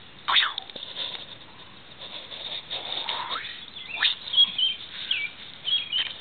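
Short, high chirps and a few quick falling whistles from small birds, most of them in the second half, over irregular rustling in the grass.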